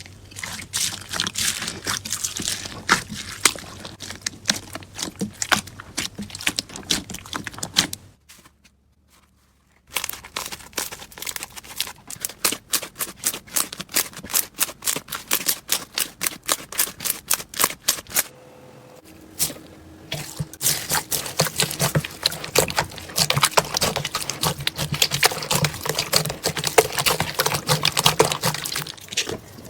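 Slime being squeezed and poked by hand: rapid, irregular sticky pops and crackles, broken by a gap of near silence about eight seconds in.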